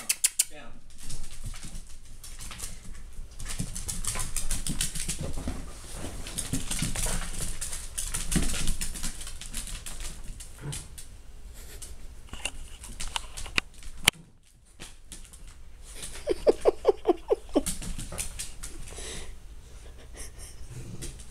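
A dachshund and a beagle mix playing on a hardwood floor: claws clicking and scrabbling on the wood, with a quick string of short yips about sixteen seconds in.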